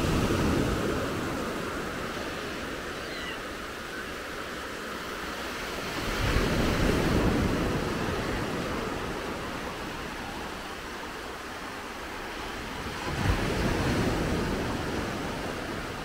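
Small waves breaking on a sandy shore and washing up the beach: three surges about six to seven seconds apart, each fading into a long hiss.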